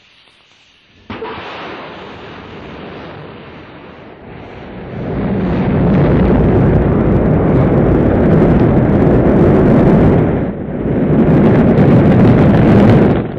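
Rocket engines igniting with a sudden blast about a second in. A deep, noisy rumble follows and builds to full loudness about five seconds in as the rocket lifts off and climbs, dipping briefly once near the end.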